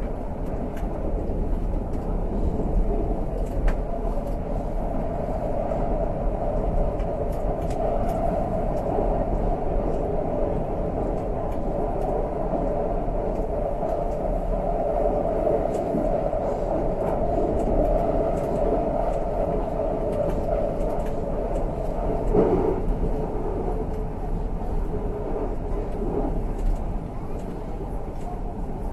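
Tyne and Wear Metro train running between stations, heard inside the passenger car: a steady rumble of wheels on rail and running gear that grows louder through the middle, with scattered faint clicks and one louder knock about three-quarters of the way through.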